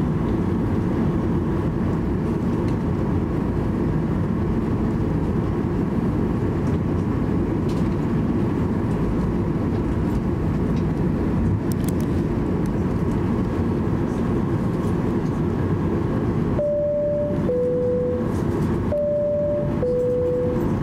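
Steady cabin rumble inside a Boeing 737-800 as it taxis, with its CFM56 engines running. Near the end a cabin chime sounds twice, each time a higher tone stepping down to a lower one: the chime that signals a cabin crew announcement.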